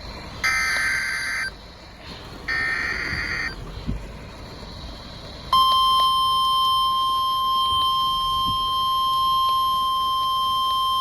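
Two one-second bursts of Emergency Alert System SAME header data, about two seconds apart, the end of the three-times-repeated digital alert header. About five and a half seconds in, the steady single-pitch NOAA Weather Radio 1050 Hz warning alarm tone starts and holds, signalling a severe thunderstorm warning.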